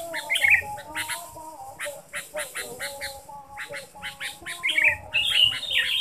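Sooty-headed bulbul calls: runs of quick, sharp chattering notes, loudest about half a second in and again near the end.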